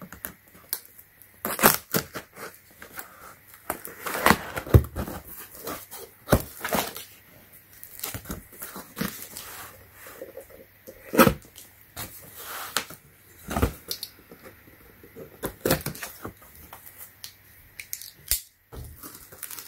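Cardboard shipping box being opened by hand: irregular scrapes, tearing and knocks of cardboard and packing tape.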